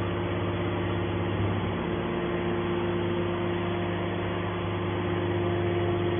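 Hydraulic can baler's power unit running with a steady mechanical hum.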